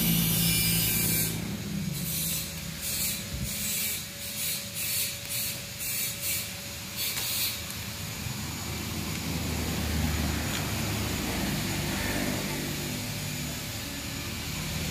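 Leaves and vines rustling close to the microphone, in a run of irregular brushes during the first half, over a steady low hum.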